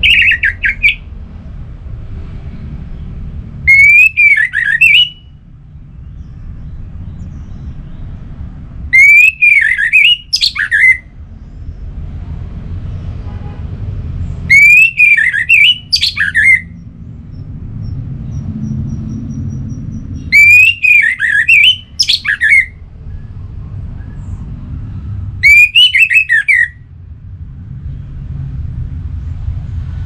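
Orange-headed thrush (anis merah) singing: six short, loud phrases of looping whistled notes, each lasting a second or two and coming roughly every five seconds. A low steady hum fills the pauses between phrases.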